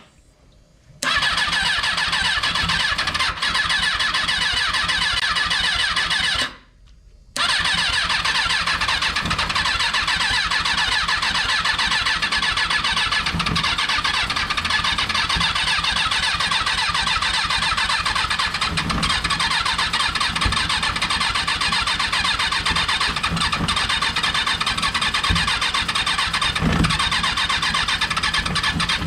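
Kawasaki 636 inline-four motorcycle engine being cranked over by its starter without catching, stopping briefly about six seconds in and then cranking on steadily. The engine is not firing.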